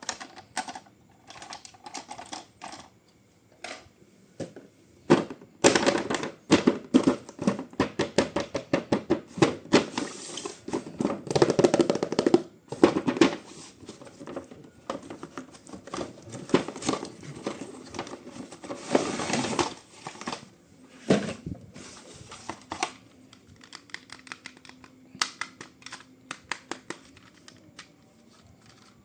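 Handling noise as a boxed remote-control toy is unpacked: long runs of rapid clicks and rattles, densest in two stretches, with sparser single clicks between.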